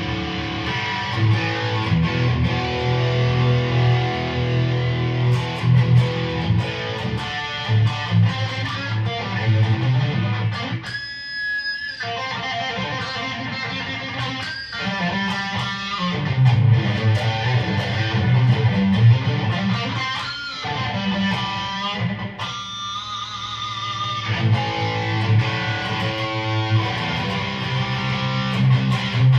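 Mattrixx Telecaster-style electric guitar with twin humbucking pickups, played with heavy distortion: sustained low chords and riffs, with two short breaks where the low end drops out, about eleven and twenty-two seconds in.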